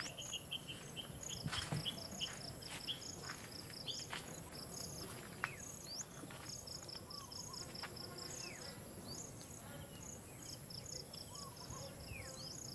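Insects chirping in trains of rapid, evenly spaced high pulses, several to a second. A few short high chirps that drop in pitch and scattered light clicks are mixed in.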